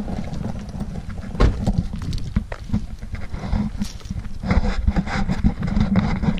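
Wind buffeting and handling noise on a handheld camera's microphone as the person holding it walks: a rough low rumble broken by irregular knocks and rubbing, the loudest knock about a second and a half in.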